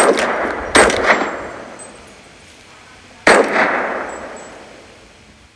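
Rifle shots: three sharp cracks, one at the start, one just under a second in and one about three seconds in, each trailing off in a long echo.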